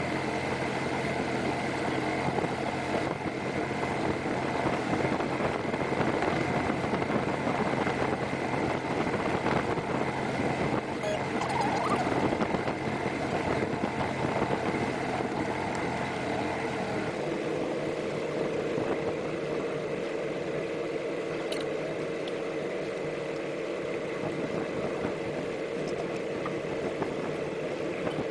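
Mercury Black Max 175 hp V6 two-stroke outboard driving the boat under way, with water rushing along the hull. About two-thirds of the way through the deeper part of the engine note drops away and it runs on at a lighter, steady note as the boat slows.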